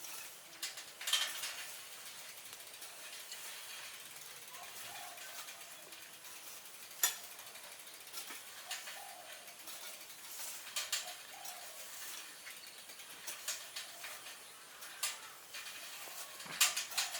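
Scattered small clicks and light knocks, a few louder ones about a second in, around seven seconds and near the end, over a low steady hiss.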